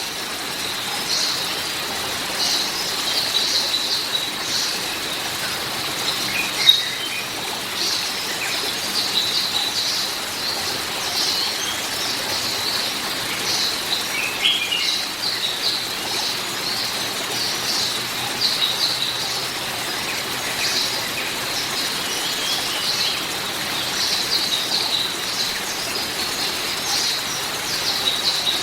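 Small birds chirping and twittering continuously, with a few lower calls now and then, over a steady background hiss.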